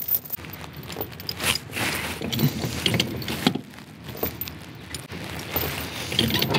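Steel tie-down chain rattling and clinking as it is dragged across a wooden trailer deck and hooked up to a lever chain binder, in irregular jangles and clanks with the busiest stretch near the middle.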